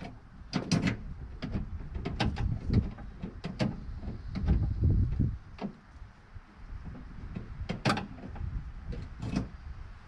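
Irregular clicks, knocks and thuds of parts being handled and fitted on a pickup truck door, with heavier thuds about four and a half seconds in.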